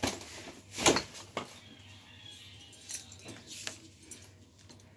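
Metal belt buckle jingling and clinking as a belt is handled, among scattered clicks and rustles of tidying, the loudest about a second in.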